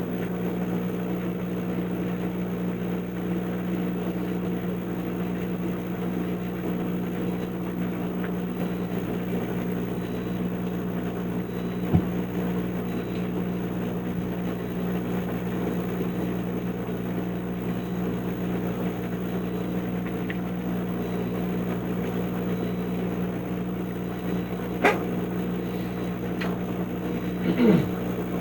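An 80 CFM bathroom exhaust fan, repurposed as a laser engraver's fume extractor, running with a steady motor hum. A couple of brief knocks are heard, about halfway through and again near the end.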